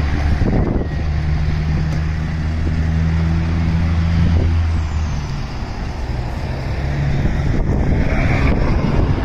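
A vehicle engine running with a steady low hum that drops away about five seconds in.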